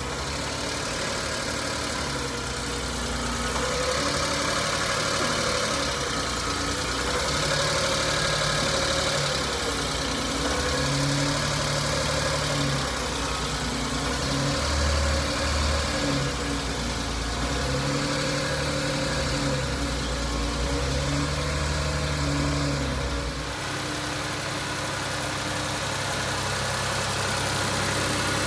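1994 Suzuki Carry kei truck's small three-cylinder engine idling steadily, its low hum swelling and easing every few seconds; near the end the deepest rumble drops away.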